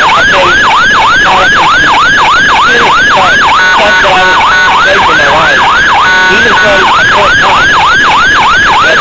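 Electronic emergency-vehicle siren sounding loudly in a rapid yelp, about three rising-and-falling wails a second. Twice it breaks into a short steady blaring tone before the yelp resumes.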